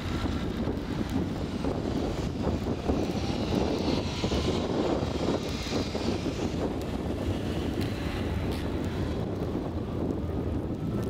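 Street traffic in snow: an electric trolleybus passes close by, its traction motor giving a faint rising whine, over the steady hiss of tyres in slush and wind on the microphone.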